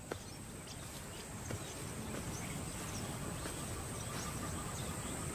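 Outdoor bush ambience: a steady, high-pitched insect drone over a soft background hiss, with a few faint short chirps or ticks.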